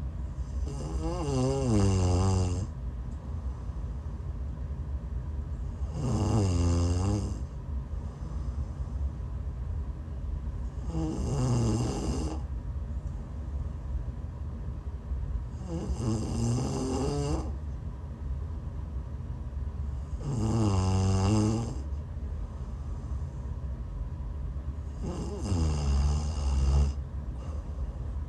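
A woman snoring while sick: six long, pitched snores about five seconds apart, each lasting about a second and a half, with a pitch that dips and comes back up.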